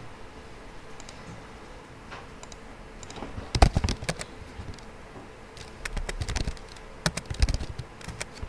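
Typing on a computer keyboard in three short bursts of keystrokes: the first about three and a half seconds in, then around six and seven seconds in.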